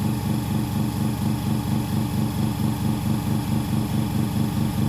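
FA11 OCA laminating machine's air pump running with a fast, even pulsing hum as the bubble-remover chamber builds pressure.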